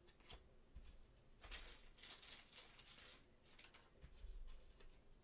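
Near silence with a few faint, soft rustles of trading cards being handled and laid on a cloth playmat by hands in nitrile gloves.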